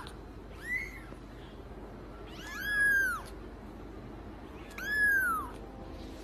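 Kitten meowing three times: thin, high-pitched mews that rise and then fall in pitch. The first is short, and the next two are longer and come about two seconds apart.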